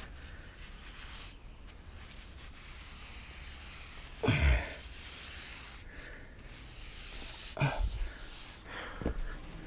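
Paintbrush bristles dragging deck paint along wood boards while cutting in against the house siding, a soft steady rubbing. Three brief louder thumps break in, the loudest about four seconds in, the others near the end.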